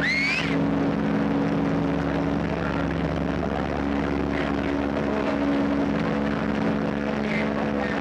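The SS Leviathan's whistle blowing one long, deep, steady blast, several low tones sounding together, over a crowd on the pier. A brief rising whistle is heard right at the start.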